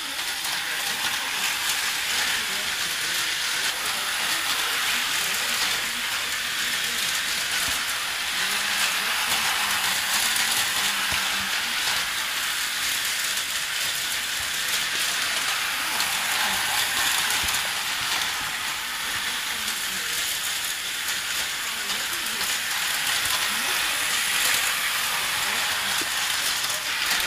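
Tyco US-1 electric slot trucks running on the plastic track: a steady whirring rattle from the small motors and gear drives.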